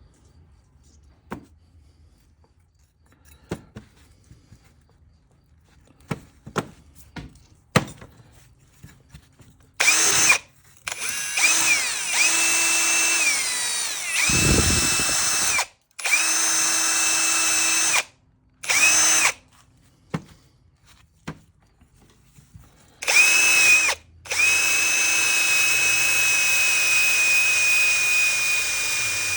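A handheld electric power tool with a high whine, drill-like, run in several bursts of a few seconds with short stops while cleaning an old fuel sending unit. Its pitch dips briefly under load once. Before it starts, a few light clicks and taps of handling.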